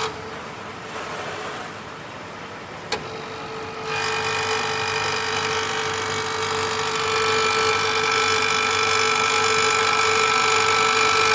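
WIND ZCN072 commutator undercutting machine running with a steady motor hum and a sharp click about three seconds in. About four seconds in its milling cutter starts slotting the copper commutator of a traction-motor armature: a loud, high-pitched whine made of several steady tones.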